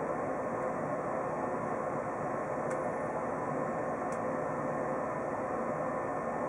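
Steady hum and hiss inside a stationary train cabin, the kind of sound made by air conditioning and auxiliary equipment running, with no marked change.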